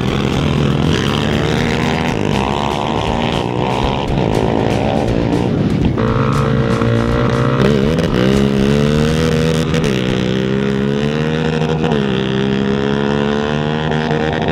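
Sport quad (ATV) engines revving at the start line and accelerating hard down a dirt drag strip. The engine pitch climbs and drops back several times, strongest in the second half.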